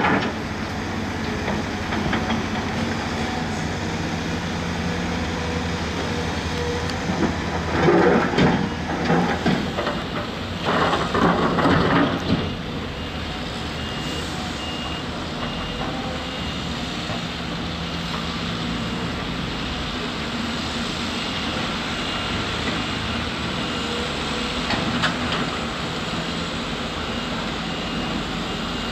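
Heavy diesel construction machinery running steadily, with two loud, rough, noisy stretches about a third of the way in. Through the second half a reversing alarm beeps at an even pace.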